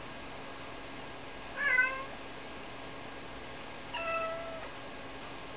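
Ragdoll cat meowing twice. The first call is louder and wavers in pitch; the second, about two seconds later, is longer and steadier. She is calling for her owner, who is out of sight.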